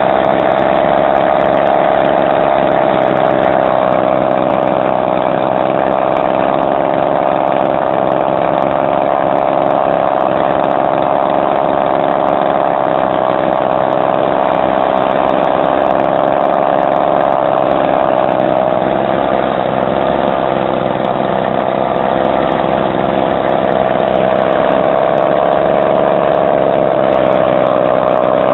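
Small two-stroke engine from a Weed Eater HP-22 gas trimmer, customised and bench-mounted, running loud and smooth at a steady speed. Its pitch eases slightly about two-thirds of the way through, then comes back up.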